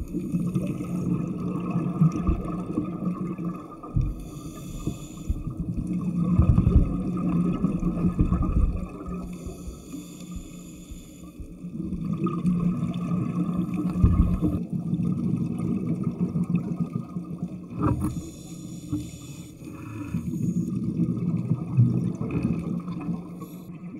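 Underwater scooter's motor humming steadily, heard through the camera housing, with the diver's regulator breaths and exhaled bubbles surging and fading every few seconds.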